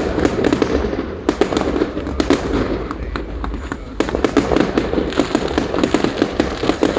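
Fireworks going off in a dense run of sharp cracks and pops. The run thins out a little past the middle, then picks up again abruptly about four seconds in.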